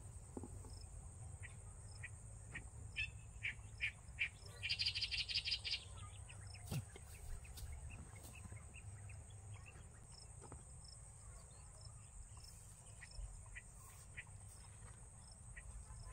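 Steady high-pitched drone of insects such as crickets, with short bird chirps over it and a quick run of rapid chirping about five seconds in.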